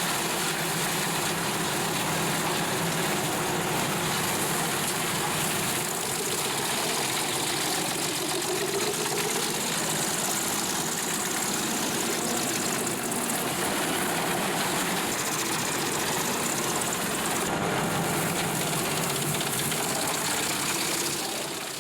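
Large truck-mounted wood chipper's diesel engine running steadily under load, with a constant rushing noise that fades out near the end.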